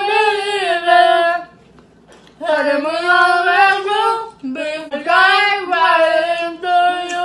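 Two young women singing a pop song together a cappella, each with an ice cube in her mouth, in long held notes that glide up and down. They break off for about a second early on, then sing on.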